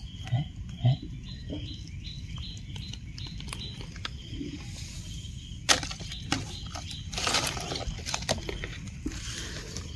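Crackling rustle of dry leaf litter with a sharp click a little before the middle, loudest around three-quarters of the way in. Two short low vocal grunts come in the first second, and a faint high chirp repeats about three times a second for the first few seconds.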